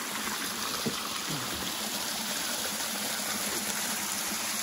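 Spring water pouring steadily out of a pipe spout and splashing onto rocks about seven feet below: a small artificial waterfall.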